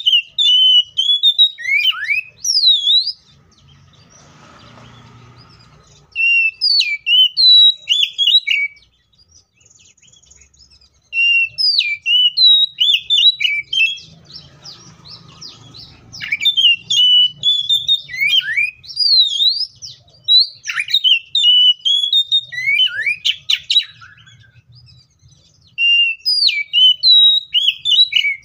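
Oriental magpie-robin singing: loud, rapid strings of varied whistled notes sweeping up and down, in long bursts broken by a few short pauses.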